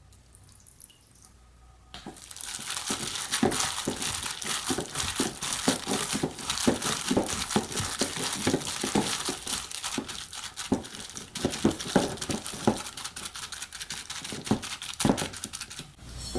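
Crinkling and rustling, like plastic or paper being handled, with many small crackles. It starts about two seconds in, after a near-silent opening, and keeps going.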